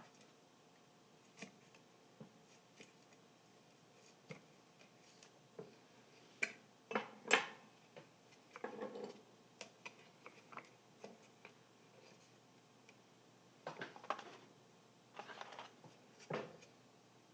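Hands and small tools working on a speaker cone and its foam surround: scattered light taps and clicks, with several short scraping bursts, the loudest a pair about seven seconds in.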